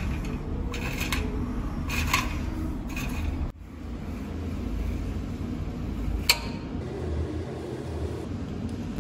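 Light metallic clinks and knocks of short steel pipe sections being handled and set down on an angle-iron support, over a steady low hum; the sharpest clink comes about six seconds in.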